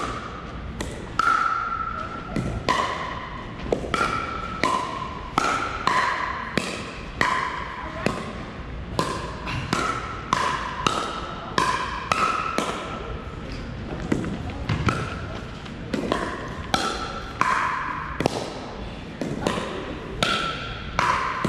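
Pickleball rally: sharp hollow pops of composite paddles striking a plastic pickleball, one to two a second with short pauses between points. Each pop has a brief ringing tone and echoes around a gymnasium.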